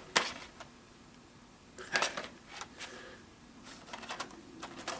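Plastic Blu-ray cases being handled and set down: a sharp click at the start, a cluster of clicks and rustling about two seconds in, and a few lighter clicks near the end.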